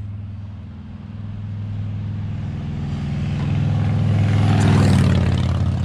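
A motor vehicle's engine running with a steady low hum, getting louder over the first five seconds as a rising rush of road or wind noise joins it.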